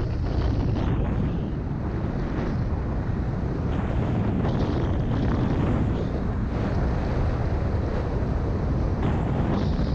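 Wind buffeting a GoPro's microphone as the skier runs downhill at about 65 km/h: a steady, loud, low rumble. Brief brighter hisses come through now and then, the skis sliding over groomed corduroy snow.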